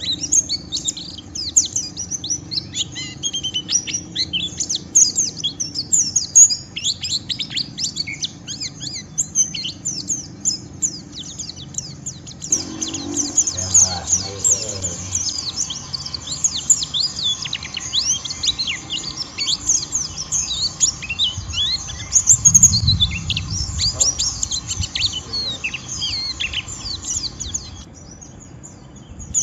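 White-eyes (pleci) chattering in the fast, harsh twitter called ngeriwik: a dense run of rapid, high, down-slurred chirps. A low bump sounds about two-thirds of the way through.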